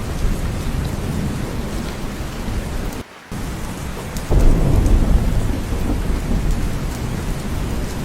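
Steady heavy rain. The sound cuts out briefly about three seconds in, and from about four seconds in a low rumble of thunder comes in suddenly and slowly fades under the rain.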